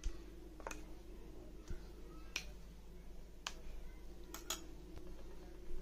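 Steel spoon clinking and tapping against stainless steel bowls as ginger-garlic paste is scraped off into minced chicken: about seven faint, irregular clicks over a steady low hum.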